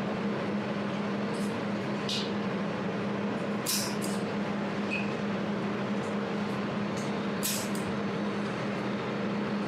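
200-watt jewelry laser welding machine running with a steady hum, broken by a few short, sharp high-pitched bursts at irregular intervals as it fires weld pulses.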